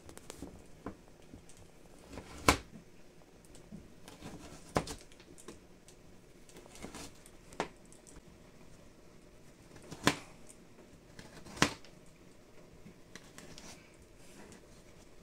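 Kitchen knife cutting a raw carrot lengthwise into sticks on a plastic cutting board: about half a dozen sharp knocks of the blade going through onto the board, a second or two apart, with fainter crunching and ticking in between.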